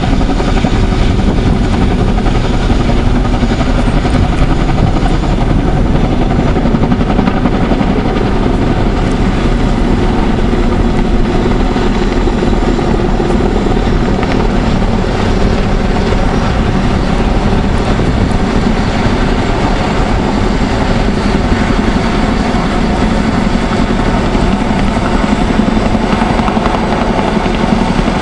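Boeing CH-47 Chinook tandem-rotor helicopter hovering low over the water, its two rotors beating steadily with the whine of its turbines, while it dips and fills a slung water bucket.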